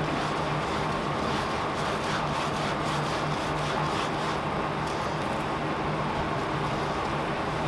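A steady low hum and hiss, with a few faint rubbing strokes of a foam brush spreading Mod Podge sealer over the diamond painting's resin drills.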